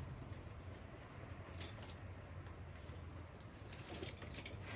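Faint metal clinks of saddle buckles and strap hardware being handled while the straps are worked, a few light jingles about a second and a half in and again near the end, over a steady low hum.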